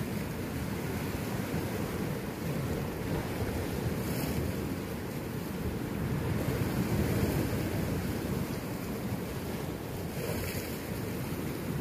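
Sea waves washing and breaking against a rocky shore, with wind on the microphone. The wash swells briefly about four seconds in and again near the end.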